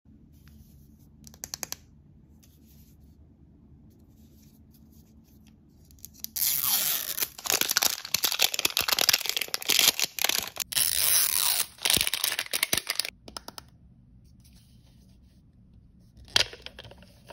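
Plastic wrap being torn and peeled off an L.O.L. Surprise ball, a dense run of crinkling and tearing that starts about six seconds in and lasts about seven seconds. Near the end comes a short sharp click of hard plastic as the clear capsule is handled.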